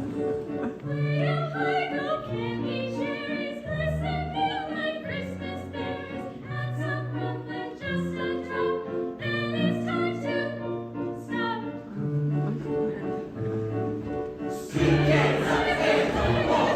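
Choir singing a holiday novelty song over instrumental accompaniment with held bass notes. About fifteen seconds in, loud audience crowd noise breaks out as the song reaches its end.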